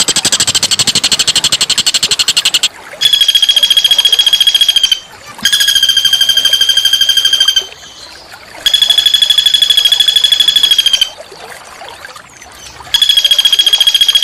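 A small songbird's harsh trill: rapid, even pulses on one steady pitch, in bouts of about two seconds with short pauses between them. A noisier, buzzier bout of the same quick pulses comes first.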